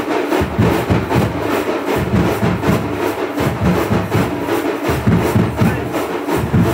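Drums played in a fast, steady beat, about five strokes a second.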